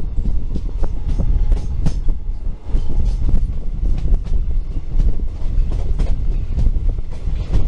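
Konkan Railway passenger coaches running at speed, heard from the side of the moving train: a heavy low rumble with frequent clattering knocks of the wheels on the rails.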